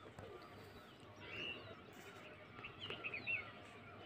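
Faint bird chirps and short twittering calls, a small cluster about a second in and another near three seconds in.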